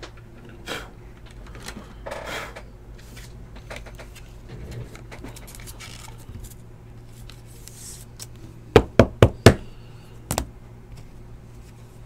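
Trading cards handled with soft plastic rustles. Near the end comes a quick run of four sharp knocks on the tabletop, then a double knock about a second later.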